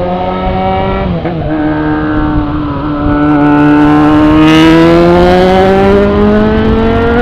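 Single-cylinder Honda XR 250 Tornado motorcycle engine under way. The pitch dips at a gear shift about a second in, then climbs steadily as the bike accelerates, with wind and road rush.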